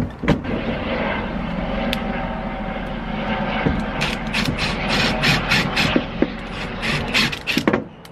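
Milwaukee cordless drill running with a 3/16 in bit, drilling rivet holes through a leather strap: a steady motor whine, with irregular clicks and rattles in the second half, stopping shortly before the end.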